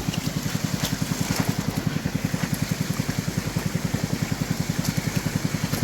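A small engine idling steadily, a fast even chugging at about ten beats a second.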